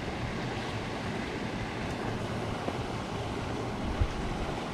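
Steady rush of water pouring through a small weir outflow, with a single dull thump about four seconds in.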